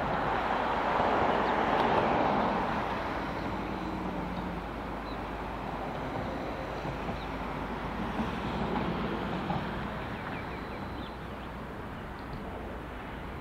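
A vehicle going past, swelling to its loudest about two seconds in and then easing to a fainter steady hum.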